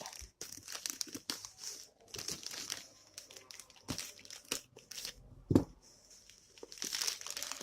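Parcel packaging crinkling and tearing in irregular handfuls as it is opened by hand, with one sharp knock about two-thirds of the way through.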